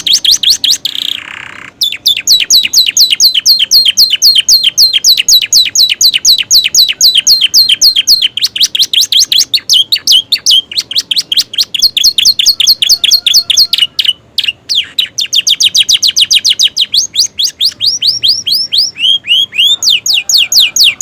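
Domestic canary singing vigorously: long rapid trills of sharp falling notes, about ten a second, broken by a short rasp about a second in and a brief pause about two-thirds of the way through.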